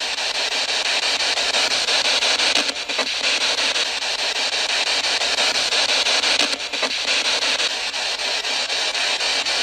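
Spirit box (ghost box) radio sweeping through stations: a steady loud hiss of static chopped by rapid, even ticks as it steps from channel to channel. In it the ghost hunters hear a voice saying the name "Micke?" in answer to their question.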